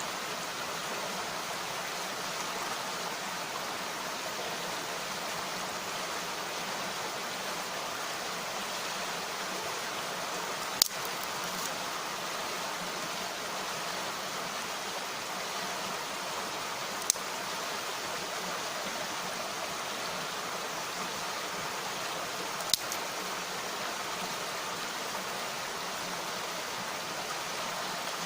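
Mountain stream rushing steadily, with three sharp pops spaced several seconds apart from a wood campfire.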